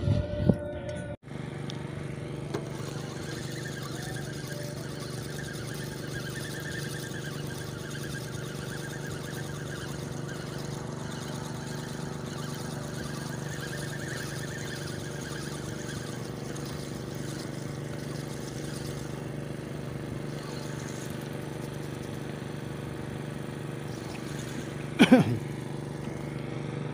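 Steady engine drone, even in pitch, with one brief loud sound near the end.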